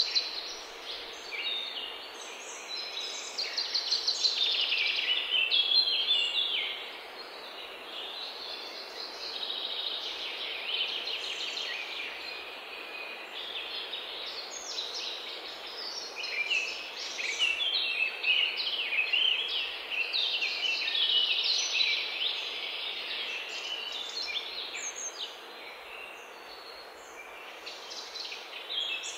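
Songbirds singing and twittering in a dense, overlapping chorus of quick trills and chirps, loudest about four to six seconds in, over a faint steady hiss.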